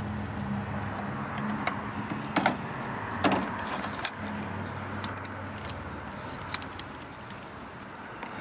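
Electric drill running as it bores into metal on the cylinder head, stepping up to a larger bit. The drill's hum fades over the first few seconds, with scattered sharp metallic clicks and clinks.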